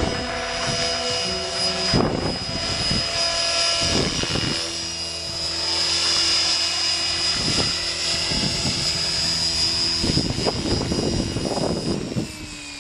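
Electric RC helicopter (Gaui X5, Scorpion 4020 brushless motor) in flight: a steady high motor whine over the hum of the rotors, with uneven swells as it manoeuvres. Near the end the level drops and the pitch falls.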